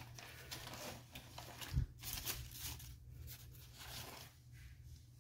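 Faint rustling of paper scraps being sorted through by hand, with one soft thump a little under two seconds in.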